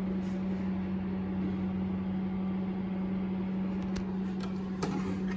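Steady machine hum with a constant low drone, and a couple of faint clicks in the second half.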